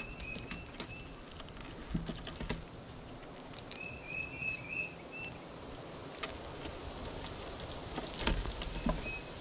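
Gray squirrel's claws and paws tapping and scratching on a wooden table among scattered seeds as it feeds, in scattered light clicks. The loudest knocks come about eight seconds in, as it comes right up to the camera. A small bird chirps in short twittering runs at the start and again about four seconds in.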